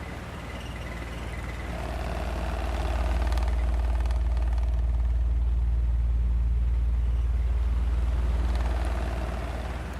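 Ventilation shaft humming: a steady deep drone that swells about two or three seconds in and eases off again near the end, with a faint rattle above it while it is loudest.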